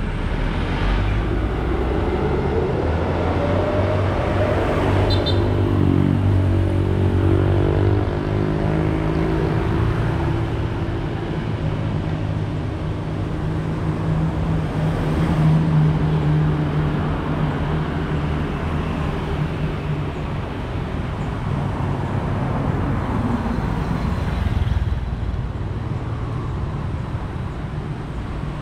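Continuous city road traffic: cars and motorcycles passing close by, their engines and tyres steady under a constant hum. A bus engine's low hum is strong at the start and fades out after several seconds.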